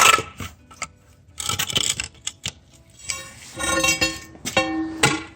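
Metal knocks and clinks, then about three seconds in a ringing, squealing metal scrape with sharp knocks, as the rubber track of a Bobcat T190 skid steer is worked off its idler.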